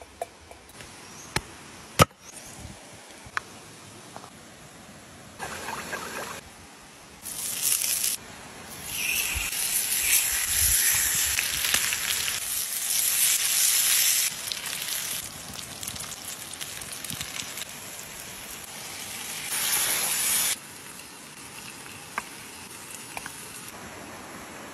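Salmon steaks sizzling on a hot stone slab over wood embers, in several stretches that start and stop abruptly, loudest in the middle. A few sharp clicks near the start.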